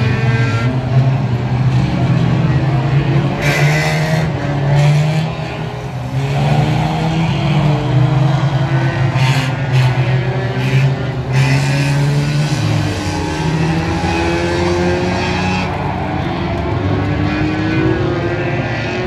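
Engines of several race cars running and revving as they lap an oval track, their pitch rising and falling as they pass. A few short bursts of rushing noise come in about a third of the way through and again around the middle.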